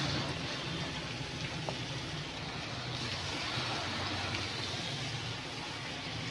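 Hot oil sizzling and bubbling steadily in a frying pan as flour-coated potato fries are dropped in by hand.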